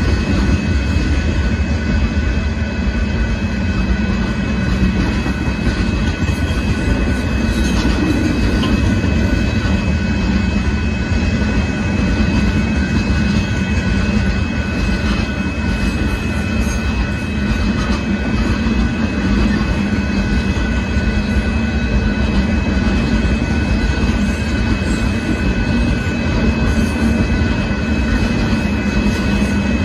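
Union Pacific freight train cars rolling steadily past, a continuous rumble of steel wheels on rail.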